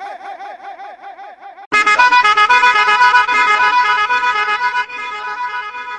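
A fast-warbling pitched tone fades out over the first second and a half. Then a loud, steady horn blast, a DJ air-horn sound effect, starts suddenly, holds for about three seconds and drops to a quieter tail.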